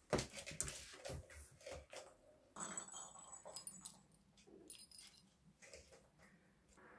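Light clicks and knocks of kittens playing at a plastic tower ball-track toy, thickest in the first two seconds and then sparser.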